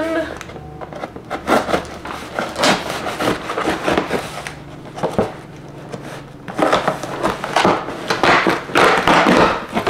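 Cardboard shipping box being opened by hand: irregular scraping and slitting at the packing tape, then denser ripping and tearing of the cardboard, loudest over the last three seconds.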